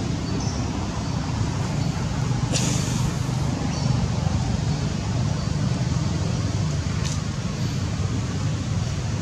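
Steady low outdoor rumble, with a brief hiss about two and a half seconds in and a shorter one about seven seconds in.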